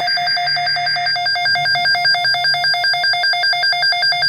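Midland weather radio sounding its electronic alert alarm: a loud, rapid, even beeping at about seven beeps a second. A higher rasping tone under it drops out about a second in.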